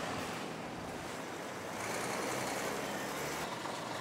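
Steady rushing noise of road traffic, with trucks going by; the deepest rumble drops away near the end.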